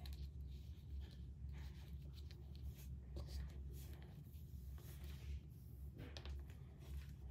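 Faint, irregular clicks and scrapes of metal circular knitting needles working stitches of yarn, over a steady low hum.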